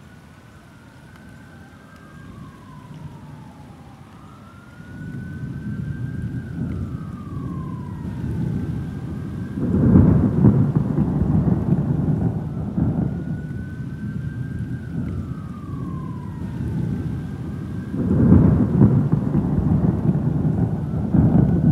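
Thunder rumbling from about five seconds in, with loud peals about ten seconds in, right after a lightning strike, and again about eighteen seconds in. An emergency-vehicle siren wails up and down throughout.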